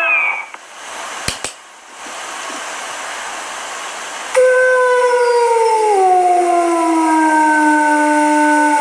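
Coyote howling: the tail of a falling howl at the start, a few seconds of hiss with two clicks, then a long drawn-out howl that starts abruptly about halfway through and slowly falls in pitch.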